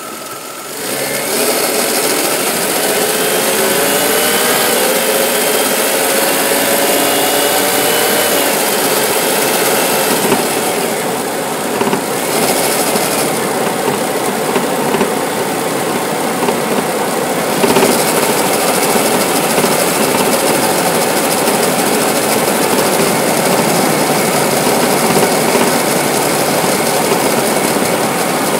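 1998 Lexus ES300 running, a steady mechanical engine-and-vehicle noise that comes up about a second in, with a few rising whines in the first several seconds. It is the front-end noise that the owner traced to a rattling hood latch.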